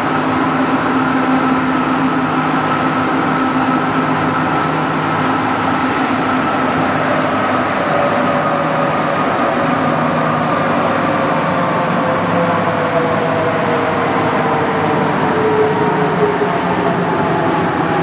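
Santiago Metro NS16 train heard from inside the driver's cab, running between stations: a steady rolling noise with electric traction-motor whines that fall slowly in pitch as the train slows.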